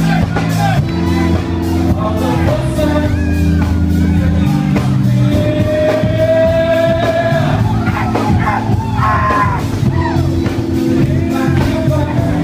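Live rock band playing: a singer over bass, guitar and drums, holding one long, slightly rising note midway through.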